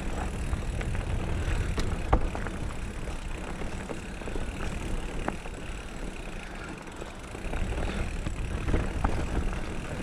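Mountain bike rolling down a dirt woodland trail: a steady rough rumble from the tyres over the ground, with scattered sharp clicks and rattles from the bike, the sharpest about two seconds in, growing louder in the last few seconds.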